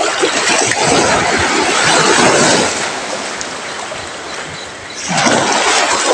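Sea waves washing against a rocky shore: a surge that swells over the first few seconds, falls away, then comes in again about five seconds in.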